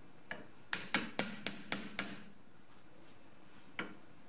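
Hammer striking a punch to drift a pistol's rear sight sideways in the steel slide's dovetail: one light tap, then a quick run of six sharp, ringing metallic strikes at about four a second, and one more light tap near the end.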